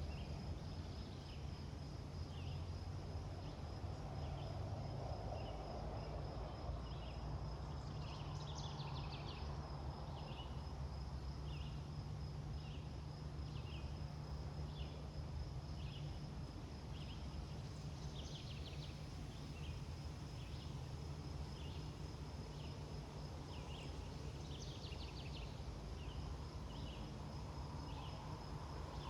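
Cottonwood leaves rustling in the wind over a low wind rumble. Through it runs a short high chirp about once a second over a steady high insect buzz, with a few brief buzzy trills.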